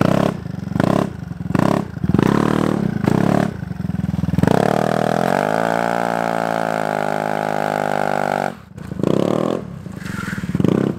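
Yamaha Zuma 125 scooter's single-cylinder four-stroke engine revved in short throttle blips. It then holds a steady high pitch for about four seconds while the scooter does a standing burnout, and drops off abruptly. More short blips follow near the end.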